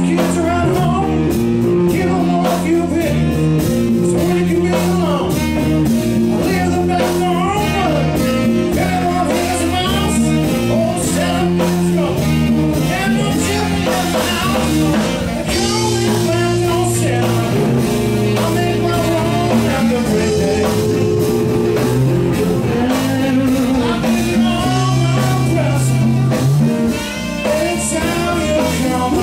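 Live blues-rock band playing, with electric guitar, keyboards, bass and drums, and singing over the top.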